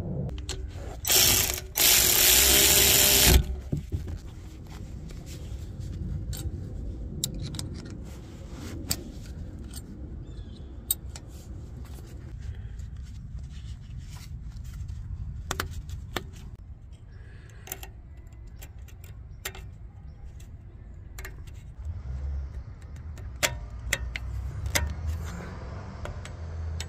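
Hand ratchet clicking and scattered metal clinks of tools on rear brake caliper hardware while the bolts are tightened, with a loud burst of noise lasting about a second and a half near the start.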